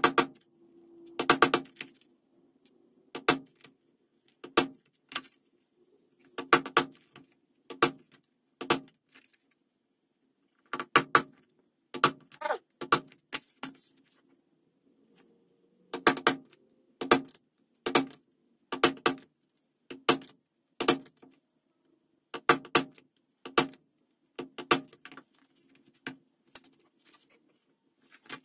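Wooden mallet striking a stitching chisel through vegetable-tanned leather, punching stitch holes: sharp knocks, singly or in quick twos and threes, about once a second, with two short pauses. The knocking stops a few seconds before the end.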